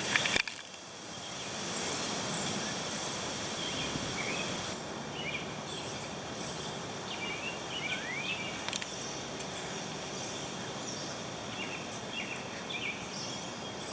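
Outdoor ambience: a steady background hiss with faint, short bird chirps, scattered and several in a row, starting about five seconds in. A couple of brief knocks right at the start.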